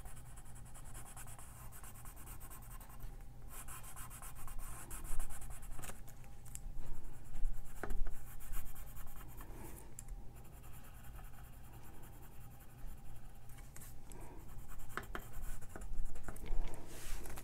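Coloured pencil scratching on white cardstock in back-and-forth shading strokes, coming in uneven spells with louder stretches now and then.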